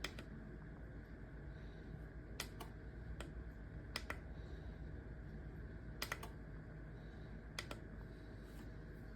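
Scattered sharp clicks, some in quick pairs, about six in all, over a low steady hum.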